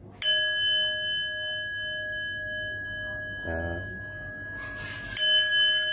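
Brass bowl bell struck twice with a long metal blade, about five seconds apart. Each strike rings out as a clear, long-sustained tone with several higher overtones that fade slowly.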